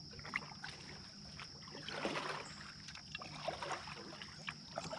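Kayak paddle dipping and pulling through calm water: scattered splashes and drips from the blade, with one fuller swishing stroke about two seconds in.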